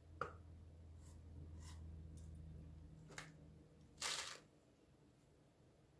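Faint clicks and taps of a wooden stick against a small glass jar as emulsifier granules are scooped out, with a brief, louder rustle about four seconds in.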